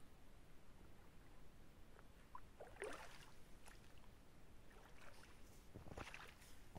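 Faint sloshing of boots wading in shallow water, with brief splashes about three seconds in and again near six seconds as a foot is lifted out onto the bank.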